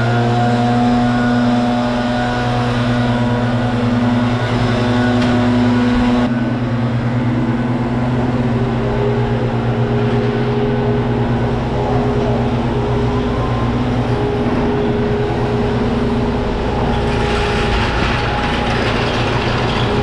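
A truck engine running at a steady speed, holding one pitch throughout, with a higher tone joining about nine seconds in.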